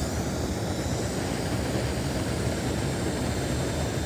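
Large surface-mix rocket burner with two oxygen lances running at full fire into a furnace: a steady, even rushing noise that holds level throughout.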